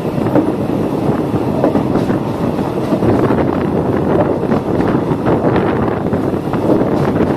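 Passenger train running along the track, heard from an open carriage window: a steady rumble of wheels on rail with wind buffeting the microphone.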